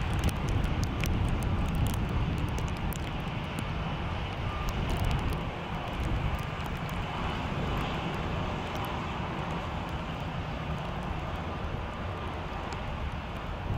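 Narrow-body jet airliner's engines at taxi idle: a steady low rumble with a faint whine, and wind noise on the microphone.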